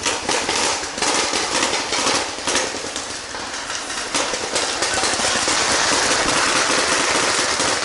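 Footsteps through forest undergrowth and branches scraping against clothing, gear and the camera, with irregular knocks and rustles. A steady rushing noise grows louder about halfway through.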